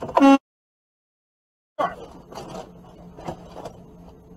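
Sound cuts out completely for over a second after a shouted word, then returns as faint truck-cab noise: a low steady hum with a few soft knocks.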